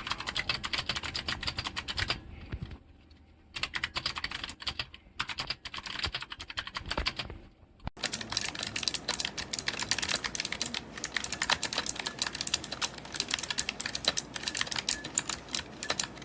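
Fast typing on a Razer Huntsman Mini keyboard with clicky optical switches: quick runs of sharp key clicks. The typing stops for about a second a couple of seconds in and again briefly before the middle, then comes back denser and brighter from about eight seconds on.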